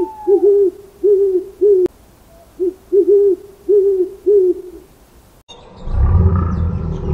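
An owl hooting: a quick series of about eight short, low hoots, some in two parts, with a pause partway through. After a short break, a loud low rumbling begins near the end.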